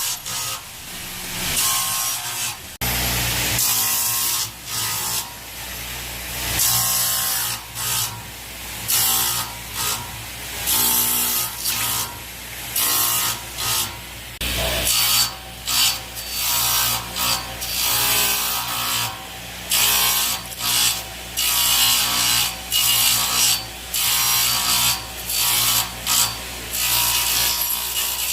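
Sliding table panel saw running with a steady motor hum, its blade cutting wood in short passes again and again, about once a second, as a circle is cut.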